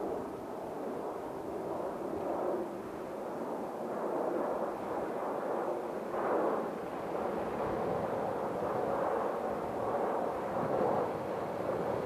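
Jet airliner engine noise: a rough, uneven rumble that swells and dips several times, with no steady tone.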